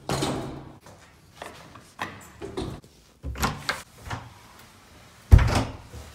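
An apartment front door being handled: several knocks and rattles of the door and its handle, then a loud thump about five seconds in.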